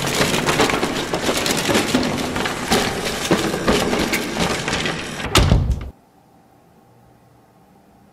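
Wooden planks tumbling down and clattering onto a pile on a wooden floor: a dense stream of wooden knocks and cracks, ending in a heavier crash that is the loudest moment. It stops abruptly about six seconds in, leaving faint hiss.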